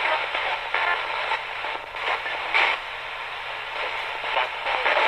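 Ghost box: a Radio Shack 20-125 radio sweeping the FM band, played through a guitar amp, giving choppy static with brief fragments of station audio cutting in and out.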